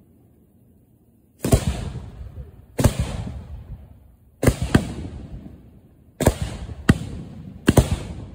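Firework shells being fired from mortar tubes close by: about six sharp launch bangs at irregular intervals, starting about a second and a half in, each trailing off in a fading rush of noise.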